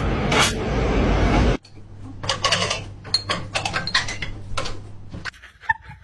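A loud burst of rustling noise for about a second and a half, then a run of irregular knocks and rattles on a door, about a dozen in all.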